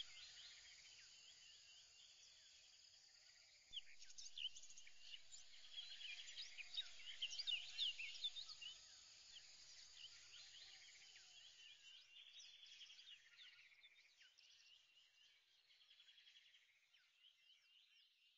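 Faint birdsong: many short high chirps and trills from several birds, fading out near the end.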